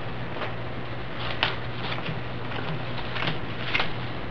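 Playing cards being dealt out one at a time onto a table: a few light, irregularly spaced card clicks over a steady low hum and hiss.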